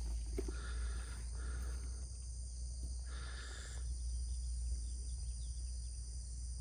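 Steady chorus of insects buzzing at a high pitch, over a constant low rumble. Faint mid-pitched sounds come twice, about a second in and again past the third second.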